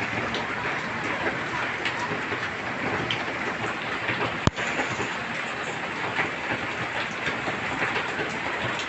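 Heavy rain falling steadily in a dense, even hiss. There is a single sharp click about halfway through.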